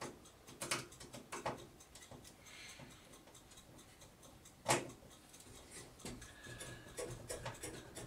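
Sparse faint metallic clicks of a screwdriver working a motherboard mounting screw that turns but won't bite into its standoff, with one sharper click about five seconds in.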